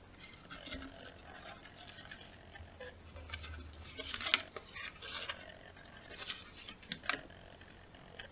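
Paper plates being handled on a table: pulled apart from a stack and slid and set down, giving an irregular string of short scrapes, rustles and taps.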